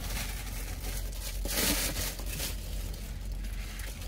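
Paper and plastic food packaging rustling and crinkling as it is handled, loudest about one and a half seconds in.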